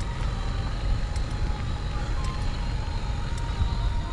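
Steady low rumble of wind buffeting the microphone while riding a bicycle, mixed with road and tyre noise and a few faint ticks.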